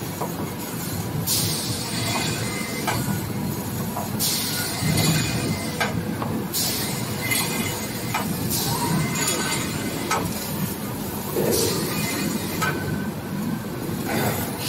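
Kitchen towel and toilet paper production line running: a steady mechanical rumble, with short bursts of hiss every two to three seconds and light clicks and clinks.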